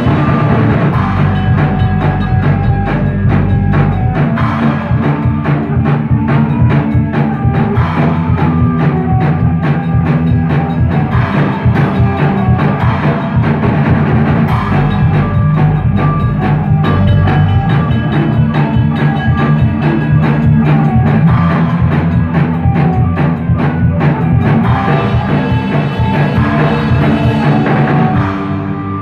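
Rock band playing live in a small room: drum kit, electric guitar and electric bass, loud and steady with constant drum hits, easing off slightly just before the end.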